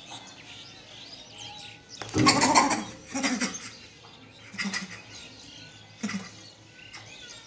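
Short, harsh animal calls in four bursts, the loudest and longest about two seconds in, the rest briefer.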